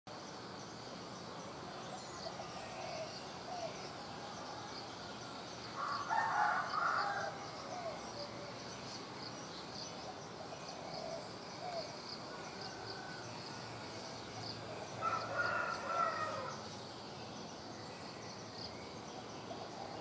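A rooster crows twice, about six seconds in and again about fifteen seconds in, each crow lasting a second and a half. Between the crows come scattered short bird chirps over a steady high insect-like buzz.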